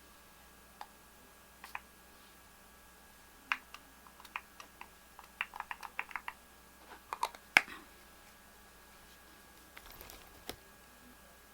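Scattered small clicks and taps from objects being handled, with a quick run of about six clicks in the middle, one louder click just after, and a short hiss near the end.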